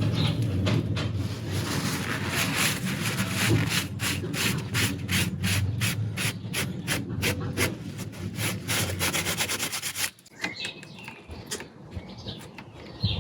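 Hand scraping of an engine part's surface in quick back-and-forth strokes, about three to four a second. The scraping stops about ten seconds in and gives way to a few light clicks and knocks.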